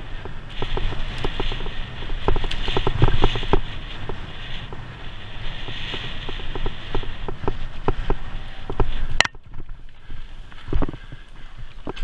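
A bicycle ridden fast over a bumpy dirt track: tyres rumbling and the bike rattling and knocking with every bump. About nine seconds in there is a sharp click, and then the noise suddenly drops to a quieter run with a few scattered knocks.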